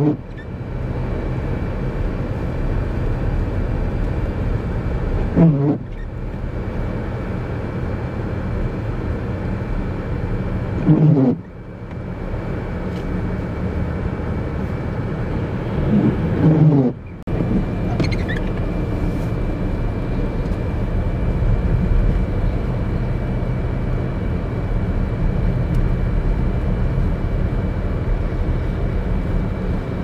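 Steady low rumble of highway traffic and wind in a blizzard, cut off abruptly three times as one clip jumps to the next.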